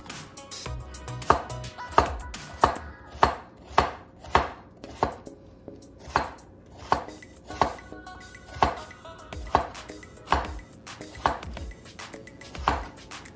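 Kitchen knife chopping vegetables, first lettuce, then cucumber, on a wooden cutting board: a steady series of sharp knocks of the blade against the board, about one every two-thirds of a second.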